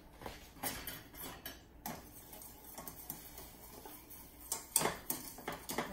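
A stirring utensil clicking and tapping against a stainless steel saucepan as a hot glaze is stirred. The light clinks come irregularly, a cluster in the first two seconds and another in the last second and a half.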